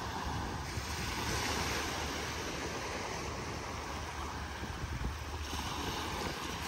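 Small waves washing onto a sandy shore, a steady hiss of surf that swells and eases, with wind rumbling on the microphone.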